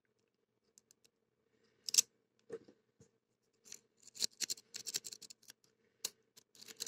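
Metal lock pick clicking and scraping against the pins inside a CITY ISEO 60 mm padlock: a sharp tick about two seconds in, then a rapid run of small clicks about four to five and a half seconds in.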